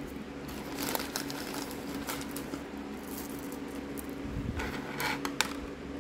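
Small plastic craft beads clicking and rattling against each other as they are tipped from a clear plastic bag into a hand and sifted with the fingers, with the bag crinkling.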